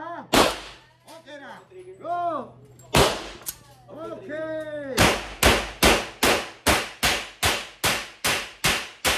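Pistol shots echoing in an indoor firing range: two single shots about half a second and three seconds in, then from about five seconds in a rapid, even string of shots at roughly four a second.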